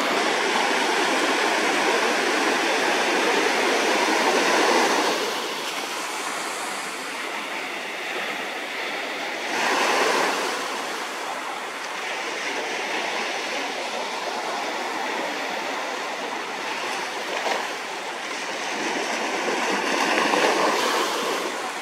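Ocean surf washing in, a continuous rush of water that swells louder about four seconds in, again around ten seconds, and near the end.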